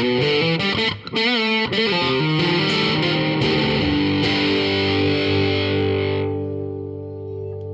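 Overdriven electric guitar through a Renzo Sound Autumn Drive pedal. Busy distorted playing with a wavering, bent note about a second in, then a chord left to ring from about four seconds, its bright edge fading away.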